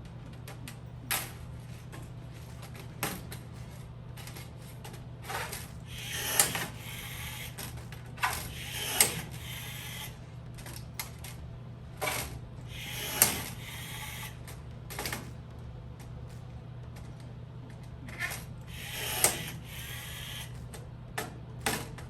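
Hand tools at work on aluminium kitplane skins during riveting: a dozen or so sharp snaps and clicks at irregular intervals, several with short rasping bursts, over a steady low hum.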